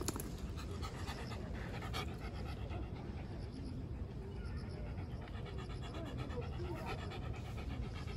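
Small white mixed-breed dog panting in a quick, even rhythm with its mouth open.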